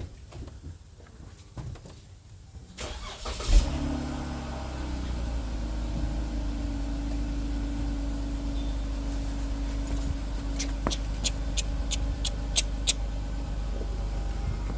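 A 2014 Jeep Grand Cherokee's engine cranks and starts about three and a half seconds in, then idles steadily. Near the end the turn signal flasher ticks quickly, about three ticks a second, as the new rear bulb is tested.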